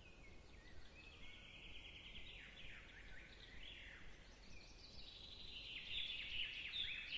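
Faint birdsong: quick trills and short downward-sliding chirps, growing louder toward the end.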